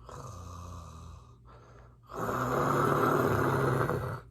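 A person imitating loud snoring: a quieter snore lasting just over a second, then a louder, longer snore from about two seconds in.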